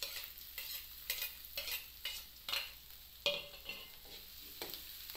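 Chopped garlic, onion and red bell pepper sautéing in hot oil in a wok, with a faint sizzle, while a metal spoon scrapes and stirs them in strokes about every half second.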